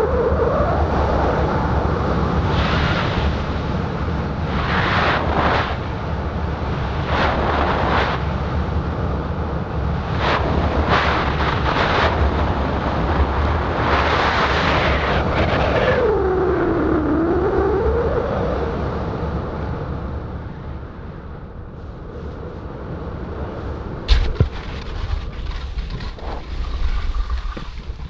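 Airflow rushing over the camera microphone during a speed-wing flight at about 50 km/h, loud at first and easing off after about twenty seconds as the wing slows for landing. A whistling tone slides up at the start and dips and rises again midway, and a sharp knock comes near the end.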